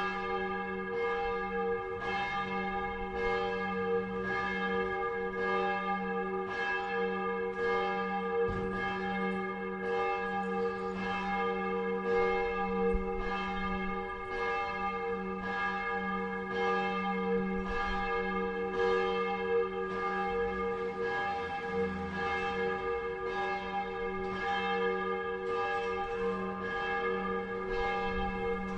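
Church bells ringing a continuous peal: several bells struck over and over, about twice a second, their overlapping tones humming on between strikes.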